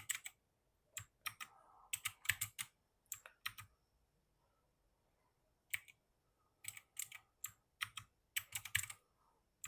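Keys of a Portronics Hydra 10 mechanical keyboard with blue switches clicking as they are pressed, in short clusters of a few keystrokes, with a pause of about two seconds in the middle.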